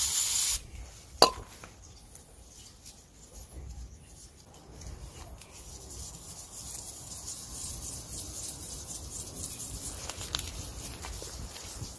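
Aerosol EGR cleaner spraying with a hiss that cuts off about half a second in, then a single sharp click. After that, a small brush scrubs carbon deposits off the metal EGR valve with a steady quiet rubbing and small ticks.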